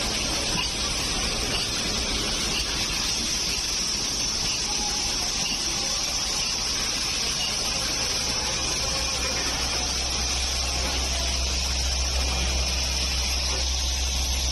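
Steady din of automated syringe assembly machinery running: an even hiss over a low hum, the hum growing louder near the end.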